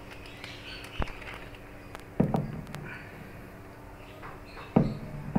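The gearbox cover of a spice-mixer machine being pushed back onto its housing by hand, giving a few separate knocks and clunks: one about a second in, another a little after two seconds, and a louder one near the end.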